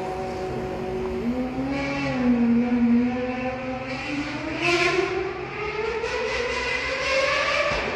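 High-revving V12 race-car engine accelerating hard. Its pitch is held steady for about a second, then climbs through the gears, dropping at an upshift about halfway through and again near the end.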